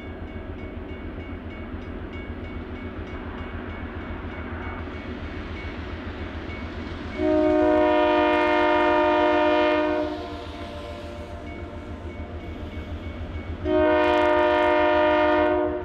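GE C30-7 diesel locomotives rumbling with a low, steady throb as they approach, with two long blasts on the air horn: one about seven seconds in, lasting some three seconds, and a second about fourteen seconds in that is still sounding at the end.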